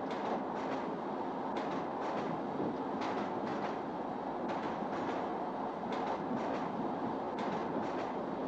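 Passenger train running, heard from inside a carriage: a steady rumble with the clickety-clack of wheels over rail joints, a quick group of clicks about every second and a half.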